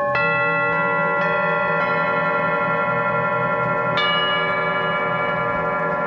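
Metal singing bowls and bells struck one after another, each stroke ringing on so the tones pile up into a sustained, shimmering hum. There are four strikes in the first two seconds and a stronger one about four seconds in.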